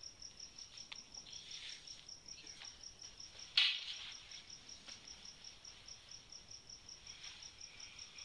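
Soft rustling of bedding and clothes as people shift under a duvet, with the loudest, sharpest rustle about three and a half seconds in. A steady high-pitched chirping, about six pulses a second, runs underneath.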